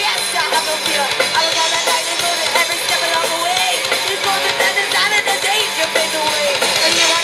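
Live rock band playing: a female vocalist singing over electric guitars, bass guitar and a drum kit.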